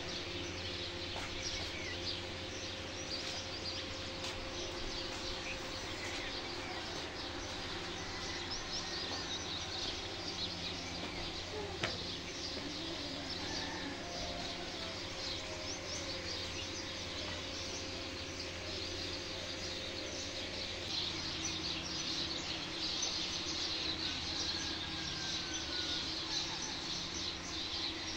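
Many small birds chirping and calling at once, a dense chatter that grows louder in the last several seconds, over a low steady hum. One sharp click stands out near the middle.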